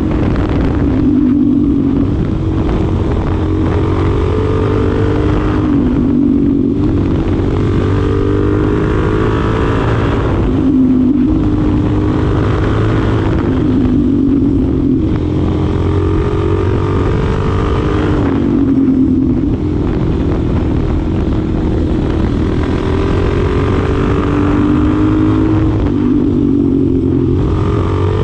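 Suzuki DR-Z4SM's 398cc single-cylinder engine under way, the engine note climbing under throttle and then dropping off sharply about every four to five seconds, as in repeated pulls through the gears or on and off the throttle.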